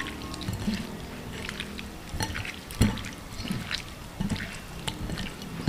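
Wet squishing and irregular soft clicks of raw peeled shrimp being mixed and coated with a ground ginger, garlic and salt paste.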